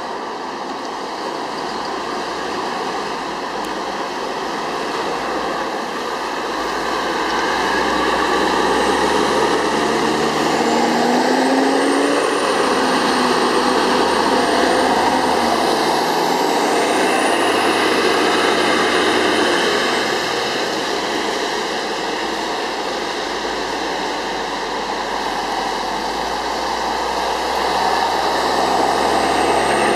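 Motor Coach Industries express buses driving past on a wet street: a diesel engine rumble and tyres hissing on the wet road, swelling as each coach passes. Several times a thin high whine rises and then levels off.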